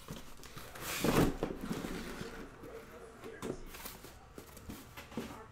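Shrink-wrapped trading-card hobby boxes being pulled out of an opened cardboard case and set down: a louder scrape of cardboard about a second in, then a few light knocks and rustles.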